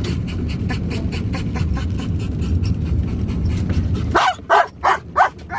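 A steady low rumble of a vehicle's cabin, with rain ticking, cuts off suddenly about four seconds in. A dog then whines in four short, high yips in quick succession.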